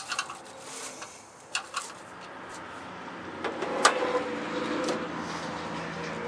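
Light clicks and clinks, then one sharp metallic click just before four seconds in as the Chevy Express van's hood is released and lifted, over a steady low hum.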